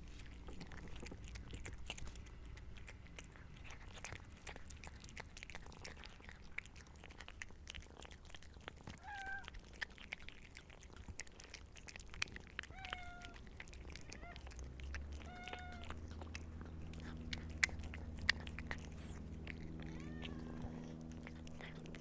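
A cat eating: steady chewing with many small clicks, broken by a few short mews. A low steady hum comes in about two-thirds of the way through.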